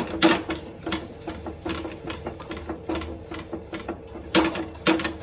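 A spoon stirring and scraping in a non-stick frying pan, mixing jaggery into ginger cooked in ghee. Quick repeated strokes, with two louder knocks near the end.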